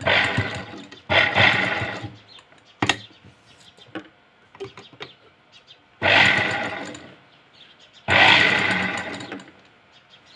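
Domestic sewing machine stitching in short runs of one to two seconds: two runs at the start, a single click near 3 s, then two more runs after a pause. The machine is topstitching the blouse's neckline band around its corner.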